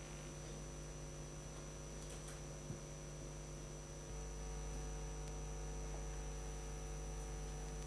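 Steady electrical mains hum with a faint high-pitched whine above it. The hum grows slightly louder about four seconds in, and there are a couple of faint ticks before that.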